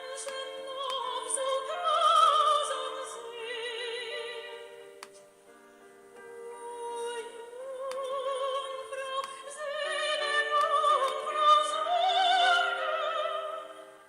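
Slow operatic-style music: a singing voice with wide vibrato holding long notes over sustained accompaniment, in two phrases with a quiet dip about midway.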